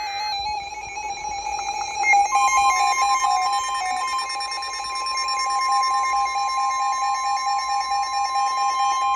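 Weather radio alert tones: an electronic alarm warbling back and forth, joined about two seconds in by NOAA Weather Radio's steady warning alert tone, which signals that a new warning is about to be read.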